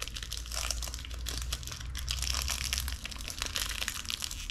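Chocolate bar wrapper crinkling and crackling as it is twisted and torn open by hand.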